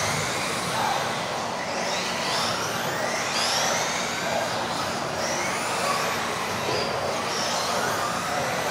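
Several electric off-road RC buggies racing together, their motors whining in overlapping rising and falling pitches as they speed up and slow down around the track.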